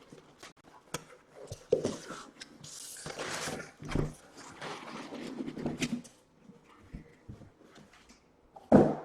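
Cardboard hobby boxes and their shipping case being handled, with rustling and scraping, a few knocks as boxes are set down, and a short louder sound near the end.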